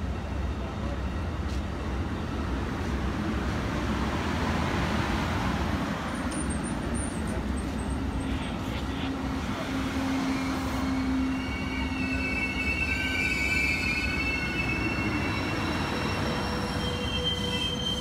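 Amtrak passenger cars (Amfleet II coaches and Viewliner cars) rolling past on the rails with a steady rumble and hiss of wheels on track. From about two-thirds of the way through, high steady wheel squeals join in.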